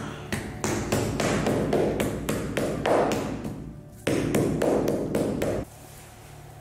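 Wooden mallet pounding a folded, paint-covered canvas on the floor: a run of dull taps, about three or four a second, with a short pause partway through, then stopping abruptly.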